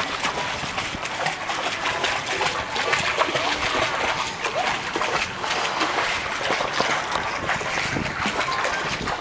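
Swimming-pool water splashing and trickling, with a swimmer doing front crawl, at a fairly steady level.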